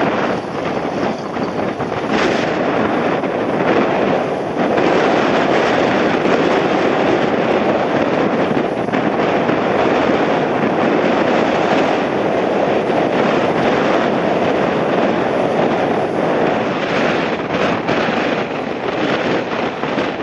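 Embraer E190 twin-turbofan airliner's engines running at high go-around thrust, a loud, steady rumble, mixed with strong wind buffeting the microphone.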